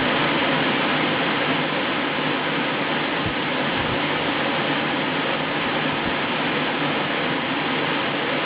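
Hair dryer running steadily, a constant rush of air with a low motor hum underneath.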